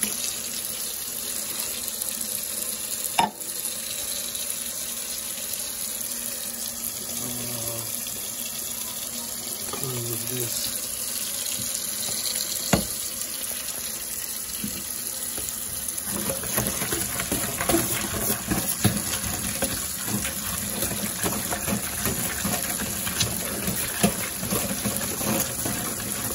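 Kitchen tap running hot water into a stainless steel sink, a steady rush, with a couple of sharp clinks. From about two-thirds of the way in, a spoon scrapes and clatters in a metal bowl as wet dog food is stirred into dry kibble.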